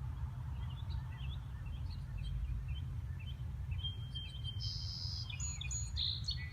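Small birds chirping, with a brighter, louder song phrase about four seconds in, over a steady low rumble.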